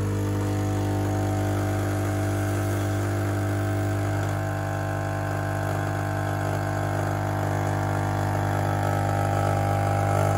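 Rancilio Silvia espresso machine's vibratory pump humming steadily while pulling an espresso shot.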